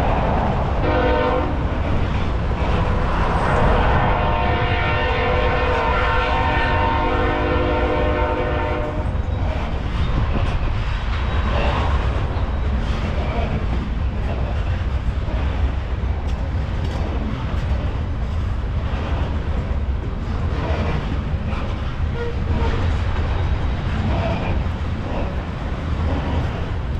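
Freight locomotive's horn blowing a chord, a short blast then a long one that stops about nine seconds in, over the rumble of the passing train. After that, tank cars roll past with steady wheel rumble and clicks of wheels over the rail joints.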